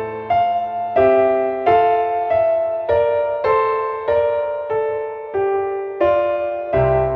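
Background piano music: a calm melody of single struck notes, about one or two a second, each dying away before the next.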